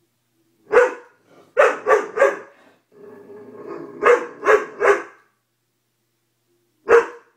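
Doberman barking in short, loud barks: one, then a quick run of three, then a low growl running into three more, and a single bark near the end.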